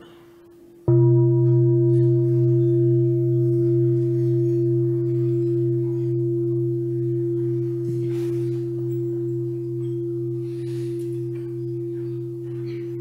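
Large Buddhist bowl bell struck once about a second in and left to ring out, a deep tone with higher overtones fading slowly. In this tradition it is a bell of mindfulness, sounded for a pause of quiet breathing.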